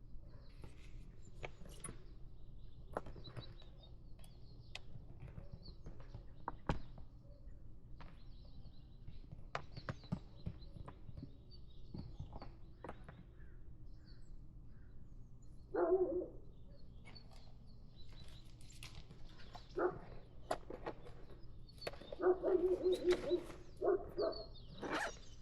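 Scattered light knocks and clicks, with birds chirping faintly. A dog gives short barks, one about two-thirds of the way in and a quick run of them near the end.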